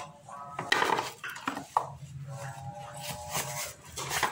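Hand tools and metal parts clinking and knocking as a scooter's electric starter motor is unbolted: a few sharp metallic clinks, about a second in, near two seconds and again near the end, some with a short ring.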